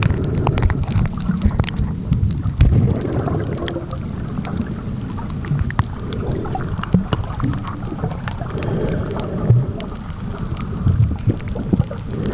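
Muffled underwater sound from a camera just below the sea surface: a low, uneven rumble of moving water with scattered sharp clicks.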